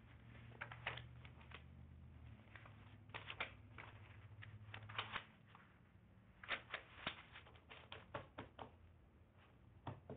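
Sheets of paper being handled and laid out on a table: irregular light rustles and taps, with a low hum underneath that stops about halfway through.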